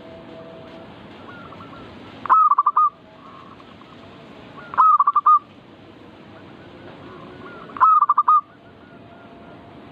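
Zebra dove (perkutut) cooing song: a short phrase of several quick notes, repeated three times a few seconds apart, over a steady hiss with faint chirps between the phrases.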